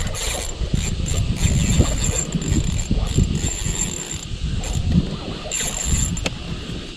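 Ultralight spinning reel's drag ratcheting in repeated spurts as a hooked milkfish pulls line out against it.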